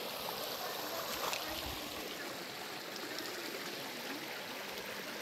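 Shallow stream running over pebbles and stones, a steady babble, with a few faint clicks a little over a second in.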